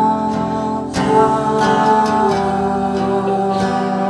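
Acoustic guitar strummed and picked in a live song, held chords ringing between sung lines, with fresh strokes about a second in and again near the end.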